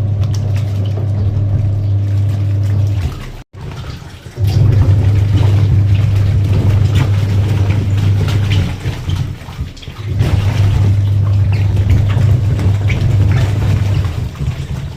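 Washing machine washing a load of shoes: a low motor hum and water sloshing with light knocks, running in stretches of about four seconds with short pauses between. The sound cuts out completely for a moment about three and a half seconds in.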